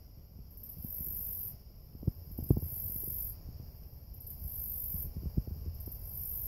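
Low, uneven rumbling noise with a couple of sharp knocks about two seconds in, over insects in the grass: a steady high whine and a higher buzzing in pulses every second or two.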